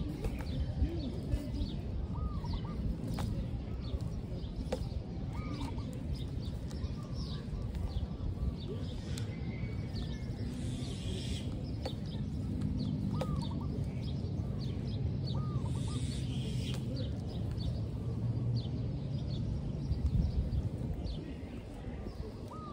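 Birds chirping outdoors in many short, repeated calls over a steady low rumble.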